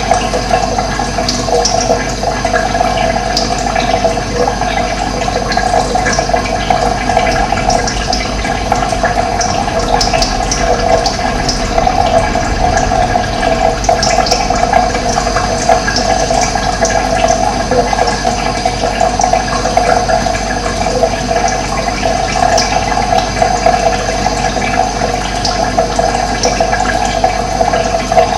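Running water flowing steadily, with short high bird chirps now and then.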